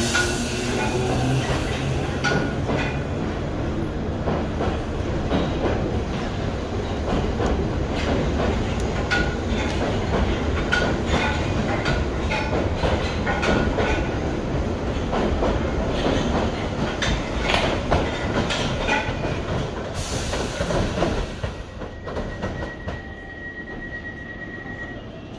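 London Underground 1972 tube stock train on the Bakerloo line, its traction motor whine rising as it gathers speed. Then a steady clatter of wheels over rail joints and points, with brief wheel squeals as the cars pass. About 20 seconds in there is a short hiss, and near the end the sound drops to a quieter background with a steady high tone.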